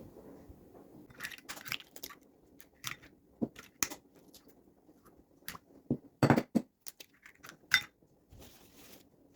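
Irregular clinks and knocks of a mixing bowl and kitchen utensils being handled, with the louder knocks clustered in the second half.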